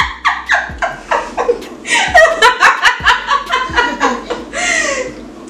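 People laughing in a run of short, rapid laughs that trail off near the end.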